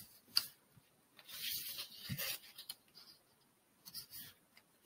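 Origami paper rustling and sliding under fingers as it is folded to the centre line and creased: a longer stretch of soft rustling about a second in and a shorter one near the end.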